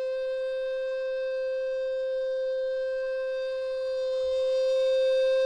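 Wooden baroque-model soprano (descant) recorder playing low C, its lowest note, with every hole covered: one long, steady held note that grows a little louder near the end.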